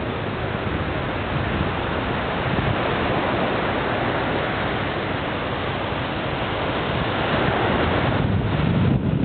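Waves breaking and washing up a sandy beach in a steady wash of surf, with wind on the microphone adding a low rumble near the end.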